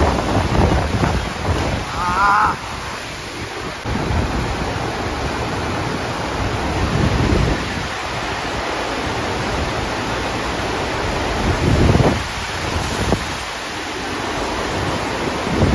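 Rushing water of a FlowRider surf simulator: a thin sheet of water pumped at speed up the padded slope, a steady rushing hiss, with gusts of wind buffeting the microphone now and then. A brief wavering high call sounds about two seconds in.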